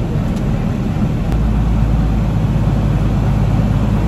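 Tractor engine running steadily, heard from inside the closed cab, its low note growing a little stronger about a second in, under the even rush of the cab's air-conditioning fan.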